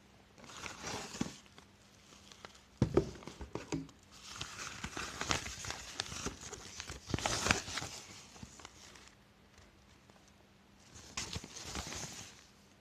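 Handling noises: rustling with scattered clicks and knocks, loudest in clusters about three seconds in and again about seven and a half seconds in, with no vacuum motor running.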